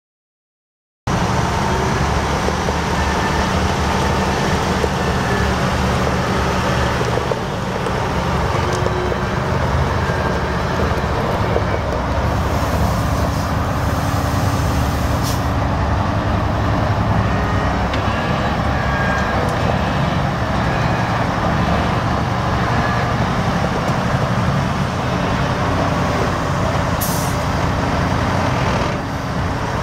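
The Mack E7 12-litre inline-six diesel of a 1998 Mack DM690S vacuum truck running steadily. It starts about a second in, and two brief high hisses come through, one about halfway and one near the end.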